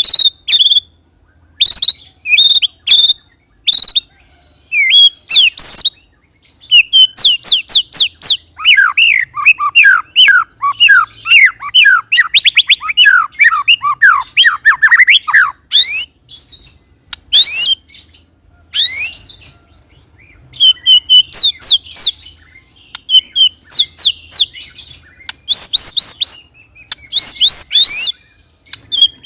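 White-rumped shama (murai batu) singing a loud, varied song of sharp whistles and quick sweeps, with a long fast rolling run of repeated falling notes through the middle. This is the rolling 'ngerol' and 'tembak' song used as a lure to get other shamas to answer.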